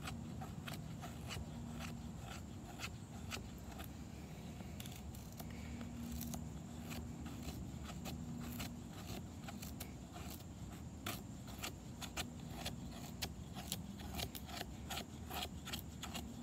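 A knife blade shaving thin curls off a stick of resinous fatwood: a quick, irregular series of short scraping strokes, two or three a second.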